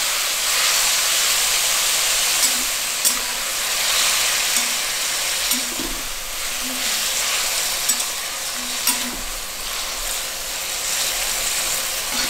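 Chopped tomatoes, dried red chillies and curry leaves sizzling in hot oil in a metal kadai, stirred with a flat metal spatula that scrapes and clicks against the pan now and then.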